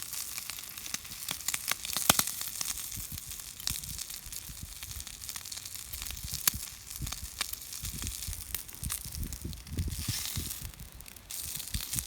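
Food sizzling on a small iron griddle over a wood-burning stove, with sharp crackles and pops throughout. Dull low bumps come in during the second half.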